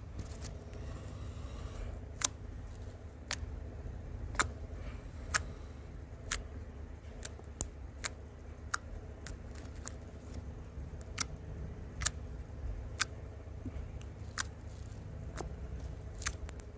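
A series of sharp clicks, roughly one a second and not quite evenly spaced, over a low steady hum.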